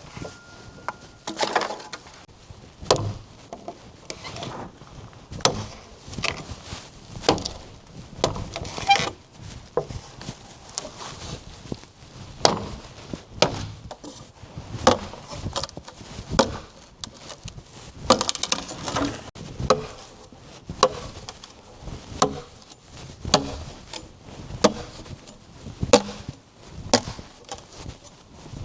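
A steady series of chopping blows, about one a second.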